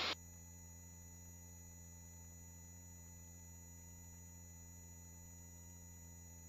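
Faint steady electrical hum of a helicopter intercom audio feed, made of a few fixed tones, after the microphones' noise gate cuts off the cabin noise just at the start.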